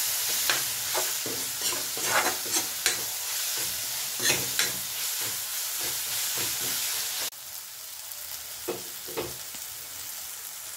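A masala of onions, green chillies and garlic paste frying in oil in a metal kadai, with a steady sizzle. A metal spatula stirs and scrapes against the pan in repeated sharp strokes. About seven seconds in, the sizzle drops suddenly and a couple of softer scrapes follow.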